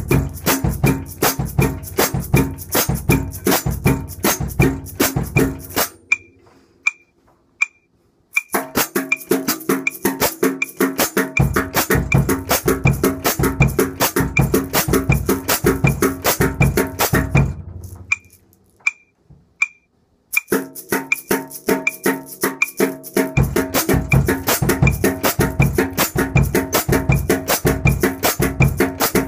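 Shaker sticks played in fast, even strokes on a snare drum, each hit carrying the rattle of the shaker heads. The playing stops twice for about two seconds, leaving only a steady high click ticking on alone.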